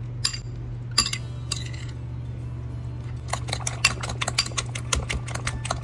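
Metal spoon beating eggs in a ceramic bowl, clinking against the bowl's sides: a few separate taps at first, then quick strokes, several a second, from about halfway on.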